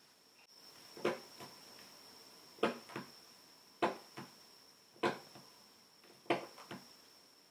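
Hand awl pricking into the leather at the stitching line, over a cutting mat. There are five sharp taps about every 1.2 seconds, each followed a moment later by a fainter one.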